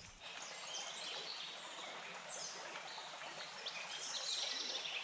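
A small stream running with a steady rush of water, and songbirds chirping now and then, a few calls together near the end.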